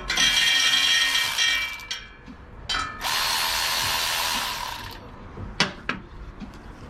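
Power tool run in two bursts of about two seconds each, with a whine over a hiss, loosening the exhaust header bolts. A few light clicks of tools and metal come between and after the bursts.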